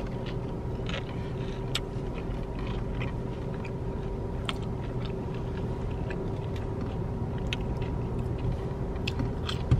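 Close-up chewing and mouth sounds of a man eating fried chicken, with short scattered clicks, over a steady low hum inside the car.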